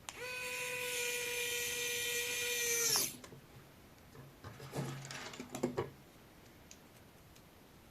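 Small electric screwdriver running with a steady whine for about three seconds while driving an M2 screw to secure a rear wheel, then stopping abruptly. About a second and a half later come a few light clicks and rattles of small parts being handled.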